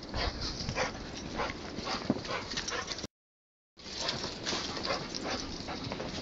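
Dogs whimpering and yipping in short, repeated calls, with the audio cutting out completely for under a second about halfway through.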